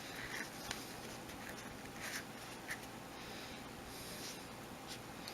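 Faint rustling and brushing of hemp cord being worked by hand as square knots are tied, with a few light ticks.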